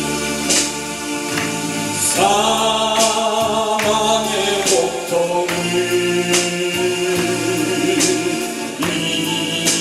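A man singing a Korean gospel hymn into a microphone, with held notes over electronic keyboard accompaniment and occasional percussion hits.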